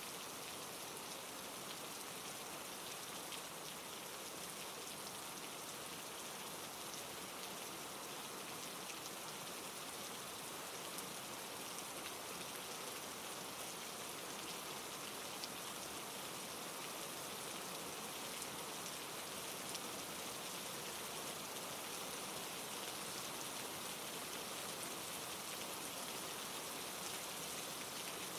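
Steady rain falling on a surface, a fine even patter of drops with a soft hiss.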